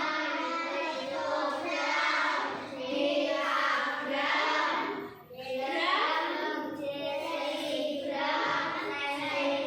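A group of children singing together in phrases, with a short break about five seconds in.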